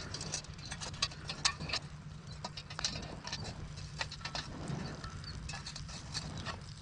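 Wood campfire crackling, with irregular sharp pops and snaps over a low steady hum.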